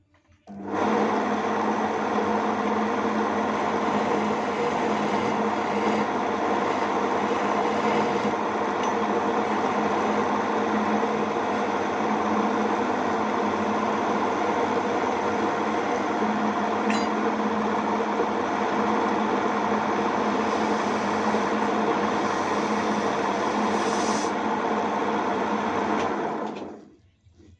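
Homemade wood lathe's electric motor running steadily with a hum; it switches on about half a second in and runs down near the end.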